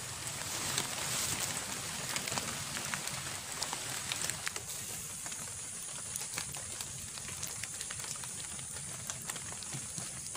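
Light rain falling on the river and the leafy bank: a steady hiss scattered with many small ticks of drops, with a constant high-pitched drone.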